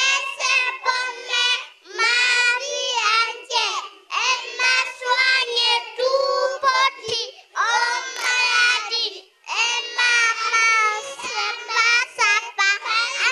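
Young children singing into a microphone, in short phrases with brief pauses between them.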